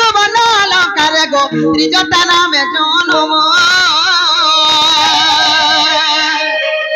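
A high voice sings a Sambalpuri folk song through a microphone with heavy vibrato, in short phrases at first and then one long held note from about halfway, ending shortly before the end. Drum strokes sound in the first half over a steady instrumental drone.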